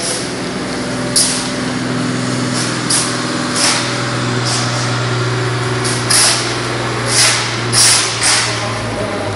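Steady low hum of running factory machinery, with about seven short, sharp hissing bursts scattered through it.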